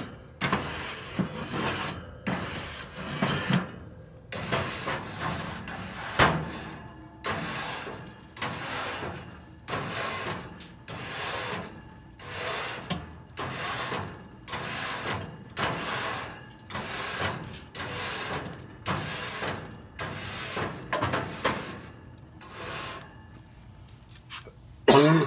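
Repeated scraping strokes, about one to two a second, as the inside of a Weber SmokeFire pellet grill is scraped and cleaned out after a grease fire.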